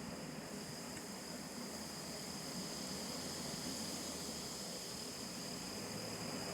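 Insect chorus in nature ambience: a continuous, even high-pitched trill over a soft background hiss.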